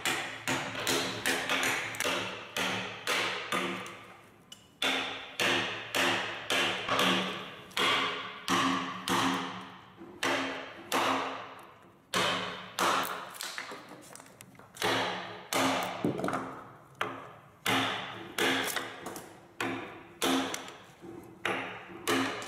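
Mallet driving a steel chisel into a large timber mill camshaft (wentelas), blow after blow at about two a second with a short pause about four seconds in, knocking away the waste wood between marked lines to round the shaft.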